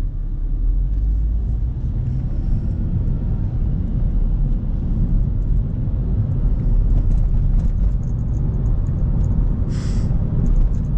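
Low engine and tyre rumble inside a car's cabin as it pulls away and picks up speed in traffic, growing slightly louder. A short hiss comes near the end.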